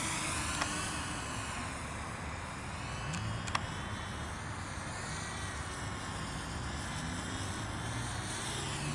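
Walkera F210 FPV racing quadcopter flying at a distance, its propeller whine steady but sweeping up and down in tone as it moves, over a low hum. One short click about three and a half seconds in.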